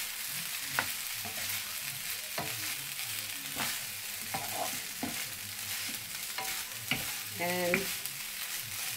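Fried rice with broccoli sizzling in a non-stick frying pan while being stirred and tossed with a wooden spoon and a spatula, with scattered clicks and scrapes of the utensils against the pan.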